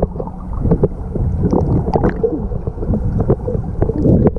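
Water rushing and splashing during a ride down a water slide, with wind buffeting the microphone and many short knocks from the jostled camera.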